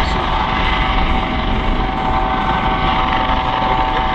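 US Coast Guard MH-65 Dolphin helicopter hovering, its turbine and ducted tail fan giving a steady whine of several held tones over a constant rotor rush.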